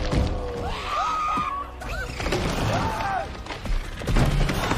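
Film sound mix of a dinosaur stampede during a volcanic eruption: several rising-and-falling dinosaur cries, mostly in the first half and again around three seconds in, over thuds and crashes, with music underneath.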